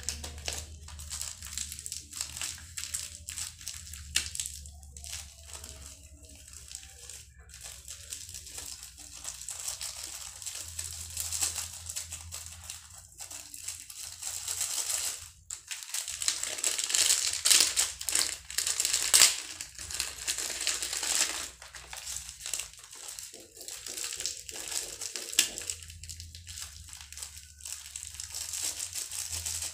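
Dry crumbled fish pellets and bait powders being stirred and rubbed together by hand in a plastic tray, a gritty rustle in uneven spells, with a plastic bag crinkling.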